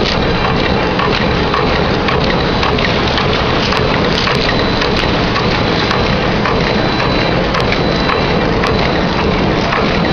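Edge-sealing bag-making machine running: a dense, steady clatter of many small rapid ticks, with a faint high whine over it.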